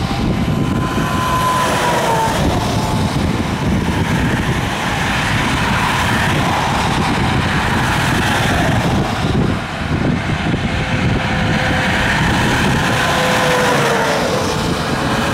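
Highway traffic passing close by, semi trucks among it: a steady rush of tyre and engine noise, with a whine that drops in pitch as a vehicle goes past about two seconds in and again near the end.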